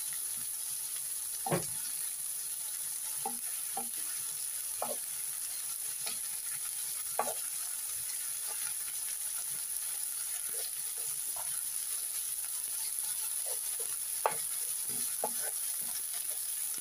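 Sliced meat frying with chilli and garlic in oil in a nonstick frying pan, sizzling steadily. A spatula and fork stirring and scraping it make scattered light taps and clicks, the sharpest about a second and a half in and again near the end.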